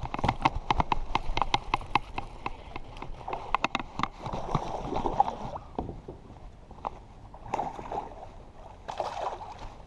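A rapid run of sharp clicks and knocks for about four seconds, then water sloshing with a few scattered knocks, as a fish is landed beside a kayak.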